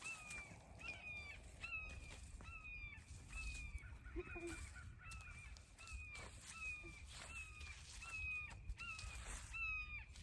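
A bird calling over and over: short, clear, slightly falling notes, one every half second or so, with faint scattered clicks and rustling.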